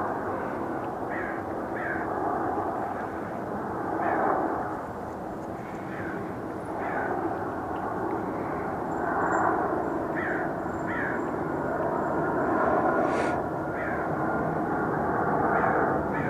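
Steady low background rumble, with short falling bird chirps every second or two.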